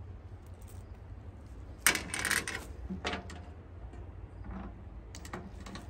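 Metal links of a saw chain clinking and rattling as the chain is handled during a chain swap on a chainsaw, sharpest in a clatter about two seconds in, then a few lighter clicks, over a steady low hum.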